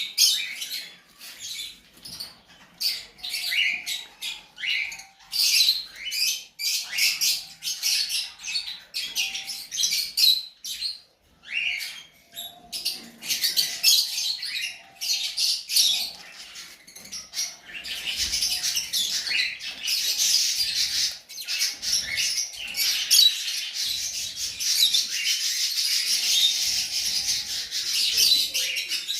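Lutino cage birds chirping, many short high calls at first, becoming a dense, continuous chatter from a little past halfway.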